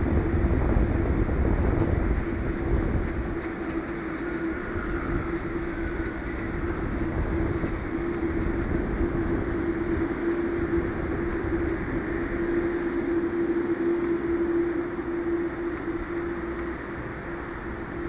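Boeing 787-9 jet engines running at taxi power: a steady rumble with a constant humming tone, the low rumble a little stronger in the first couple of seconds.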